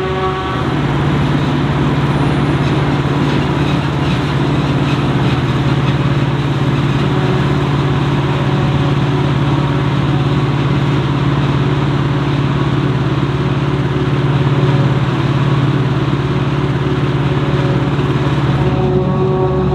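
Heavy diesel farm machinery running steadily under load: a deep engine drone beneath a loud, even rushing noise.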